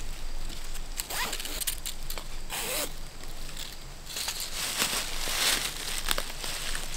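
A trail-camera mounting strap being pulled and cinched around a tree trunk, making a series of short scratchy rasps like a zipper, with rustling in the dry leaf litter.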